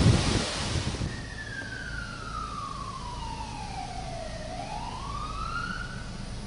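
Emergency vehicle siren wailing: its pitch falls slowly for about three seconds, then climbs again. Wind noise on the microphone dies away in the first half second.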